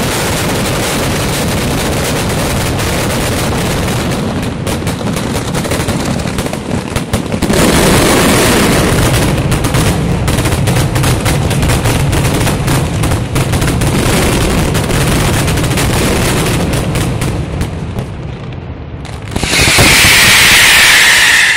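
Mascletà firecrackers going off in a rapid, unbroken barrage of sharp bangs that grows louder about a third of the way in, with charges bursting in the air overhead. Near the end a high whistling tone joins the bangs.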